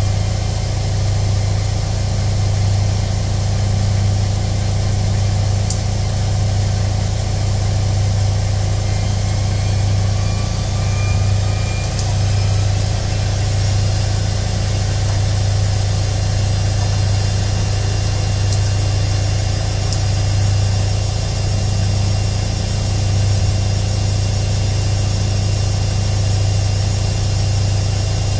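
Washing machine running: a steady, unbroken low hum over an even whirring hiss.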